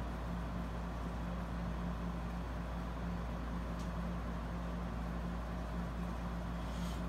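Steady low hum of room background noise with a constant low tone, unchanging throughout, and a faint click about four seconds in.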